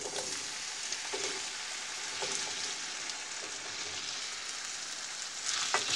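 Diced raw potatoes sizzling in hot oil in a frying pan as handfuls are dropped in: a steady hiss, with louder crackling near the end.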